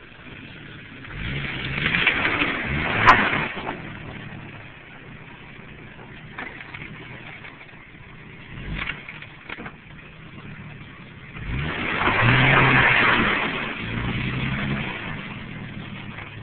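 Jeep Cherokee engine revving up under load twice, each time for a few seconds, with the front tire scrabbling through dirt and dry brush as it climbs a ledge. A single sharp crack comes about three seconds in.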